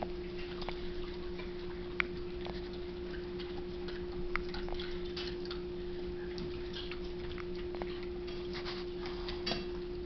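Hiccups: short, sharp hics a couple of seconds apart, the clearest about two seconds in, again about four and a half seconds in and once more near the end, over a steady low hum.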